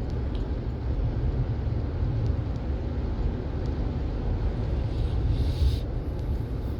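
Steady low rumble of a moving car, road and engine noise heard from inside the cabin, with a brief rise of hiss about five seconds in.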